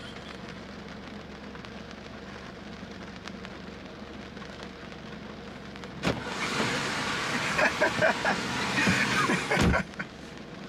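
Inside a parked car with the engine idling, rain patters on the body. About six seconds in a car door opens and the rain gets much louder, with rustling and knocking as someone climbs in, and the door shuts with a deep thump near the end.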